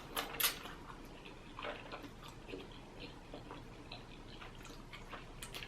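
A person eating and chewing, heard as quiet, scattered wet mouth clicks and smacks, with two sharper clicks in the first half second.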